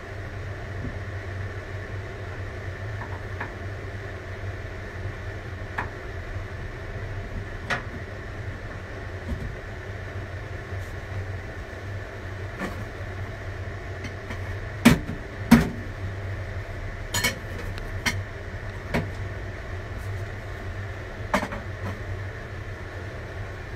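Scattered knocks and clatters of dishes and kitchen utensils being handled and set down, with two louder clacks in quick succession about 15 seconds in, over a steady low kitchen hum.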